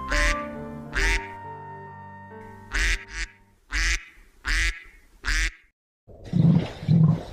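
Duck quacking about six times in short separate calls over background music. After a short silence near the end, a different, lower-pitched pulsing animal-like sound begins.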